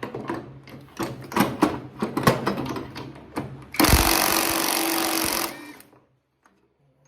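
Metal clinks and knocks of a socket and parts being handled, then an impact wrench runs hard for about a second and a half and stops abruptly, spinning off a front-end bolt.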